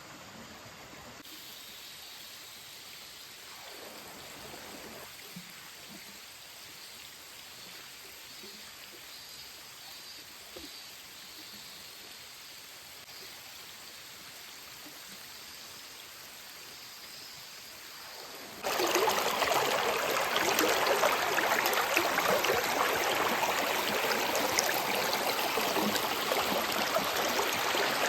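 Mountain stream water rushing over rocks, faint at first. About two-thirds of the way through it suddenly becomes much louder and fuller.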